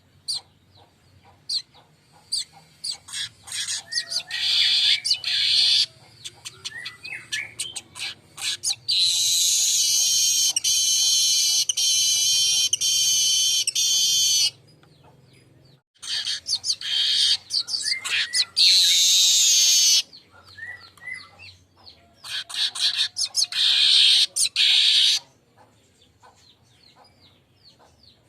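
Manyar (weaver bird) singing: four bouts of dense, high-pitched, wheezy chattering song, the longest lasting about five seconds, with sharp ticking calls in between.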